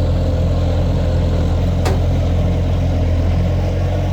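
A vehicle engine idling steadily, with a single sharp click about two seconds in.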